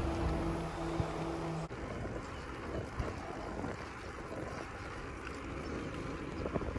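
Wind rushing over the microphone of a bicycle rider on the move. A steady low hum sits under it for the first couple of seconds and breaks off abruptly.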